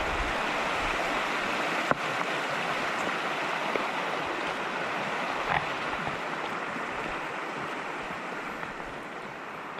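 Creek water rushing steadily, slowly fading toward the end, with a single sharp click about two seconds in.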